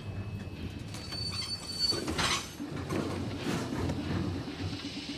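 A streetcar running along its rails, heard from inside the car: a steady rumble, with a thin high wheel squeal lasting about a second, starting about a second in.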